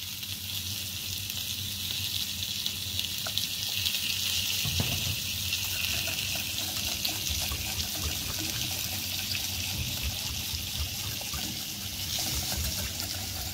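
Steady hiss of a chicken breast sizzling on a grill pan. Over it, faint light clicks of a wire whisk against a glass bowl as an olive-oil and lemon dressing is beaten.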